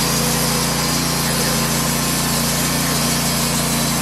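Norwood portable bandsaw sawmill cutting through a spalted pecan log, its gasoline engine running at a steady pitch under the hiss of the band blade in the wood.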